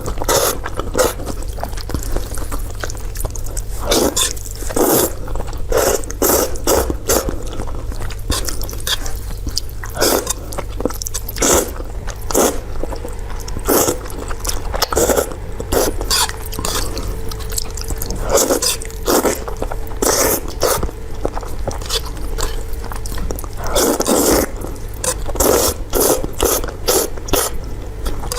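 Close-miked eating sounds for ASMR: wet chewing and mouth noises in an irregular run of short strokes, with no speech.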